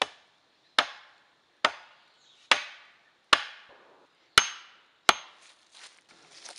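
A hatchet pounding a wooden stake into the ground: seven sharp wooden knocks, evenly spaced at a little under one a second, then only faint small sounds in the last second or so.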